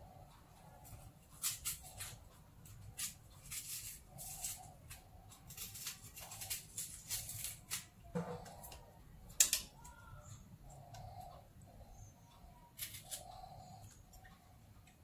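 Kitchen handling sounds: irregular sharp clicks and knocks of a knife and vegetables on a cutting board, the loudest about nine seconds in. Faint bird calls come and go in the background.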